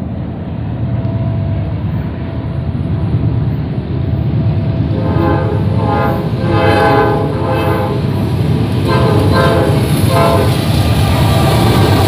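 Diesel freight locomotives approaching with a steady low engine rumble; the lead locomotive sounds its air horn in several blasts starting about five seconds in, the middle one longest, and the rumble grows louder near the end as the locomotives draw alongside.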